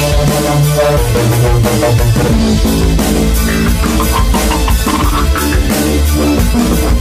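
Background music with drums and a heavy bass line.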